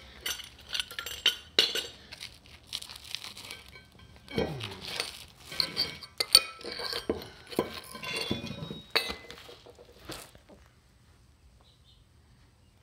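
Sharp, irregular metallic clinks, taps and scraping: weld slag being chipped and knocked off a fresh weld bead on steel. The clinking stops about ten seconds in.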